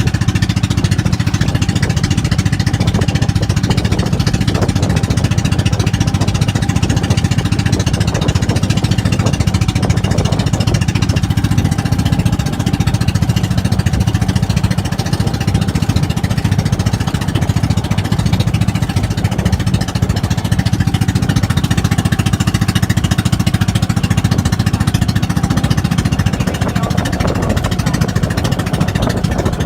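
Boat engine running steadily with a rapid, even chugging.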